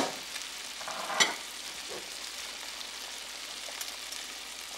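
Snails, garlic and parsley frying in butter and oil in a pan, with a steady sizzle. A utensil knocks against the pan as it is stirred, sharply at the very start and again about a second in.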